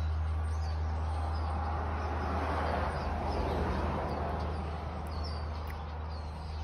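Outdoor street ambience: a steady low rumble, with a vehicle passing that swells up in the middle and fades away, while small birds chirp faintly.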